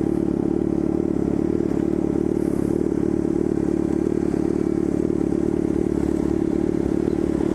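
Yamaha FZ6's inline-four engine running loud through a straight-through 4-into-1 racing exhaust, holding steady revs.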